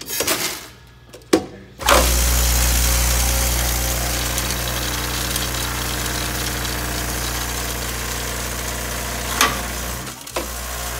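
Vibratory bowl feeder of a Batching Systems FAW 24 counting machine starting up about two seconds in and running with a steady electric hum, small metal rivets rattling around the bowl and down the chute into the weigh bucket. A sharp click comes near the end, the feeder drops out briefly, then starts again.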